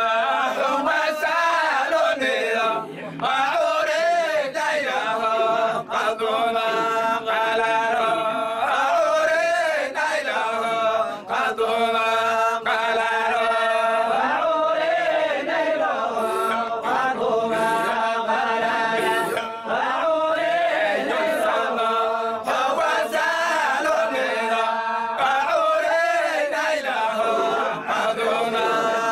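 Group of men chanting a Sufi dhikr of the Zayla'iyya order together, unaccompanied, in long held, melismatic lines.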